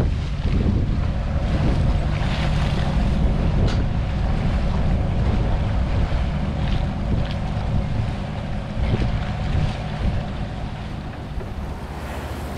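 Beam trawler's diesel engine running steadily under way, a deep low hum that fades a little near the end as the boat draws away. Wind buffets the microphone.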